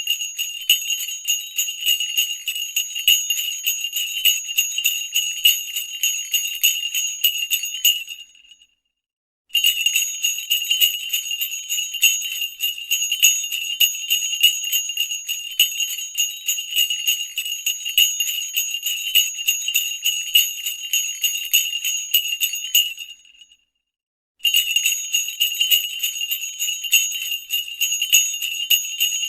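Sleigh bells shaken in a continuous bright jingle, breaking off into a second of silence twice, about eight and twenty-three seconds in, then starting again.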